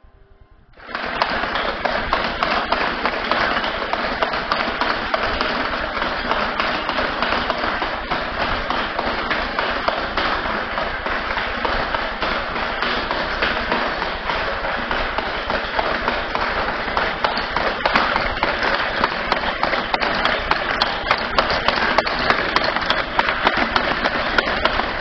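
Motor-driven mechanism of a kinetic sculpture running: sheet-metal pistons, crank rods and gear wheels clattering in a dense, steady rattle of taps. It starts abruptly about a second in, and sharp clicks come at a steady pace over the last few seconds.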